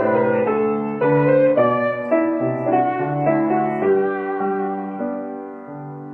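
Grand piano playing a hymn tune in block chords that change about every half second. Near the end of the phrase the chords slow and a held chord fades away.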